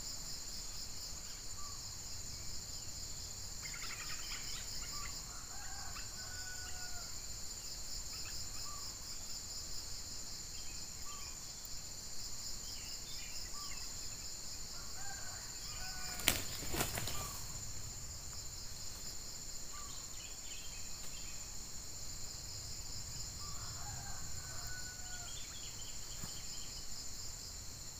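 Red junglefowl roosters crowing in short crows, about three times, over a steady high buzz of insects. A single sharp knock comes about halfway through.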